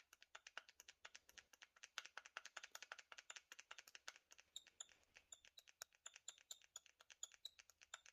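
Faint, rapid clicking and squeaky ticking from a loose GoPro mount in a chest harness being wiggled back and forth. The holder has play, and its rubbing in the harness is the squeak that was heard on the ride recordings.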